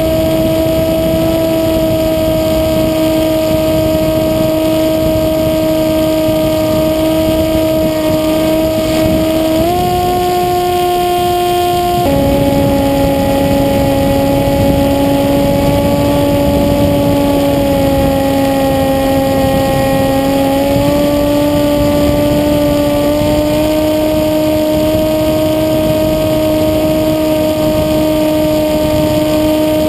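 Electric motor and propeller of a depron flying wing heard from onboard over wind rush: a steady whine that steps up in pitch about ten seconds in, drops sharply two seconds later as the throttle is eased back, then creeps up again in two small steps.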